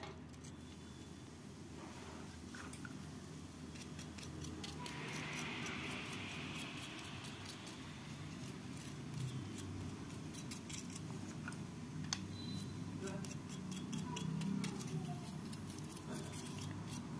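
A flat bristle brush swept over a battery charger's printed circuit board, the bristles catching on the soldered components in a quick run of small ticks with a short scratchy rasp, starting a few seconds in. A low steady hum lies under it.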